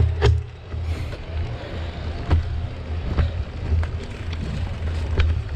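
Mountain bike riding down a dirt singletrack, heard from a camera on the bike: wind rumbles on the microphone over the tyres on dirt, and the bike rattles with sharp clicks and knocks every second or so.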